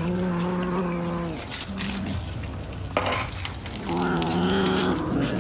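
Cats giving low, drawn-out yowls while crowding a bowl of raw fish: one long call at the start, a short one about two seconds in, and another from about four seconds in. Between them come scattered clicks and wet chewing of the fish.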